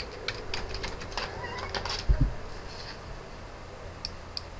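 Computer keyboard typing: a quick run of key clicks over the first two seconds, a single low thump just after two seconds, and two more key clicks near the end as the command is entered.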